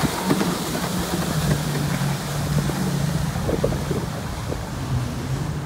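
Two jet skis running at speed past the listener: a steady low engine drone under the rush of water spray, with wind on the microphone.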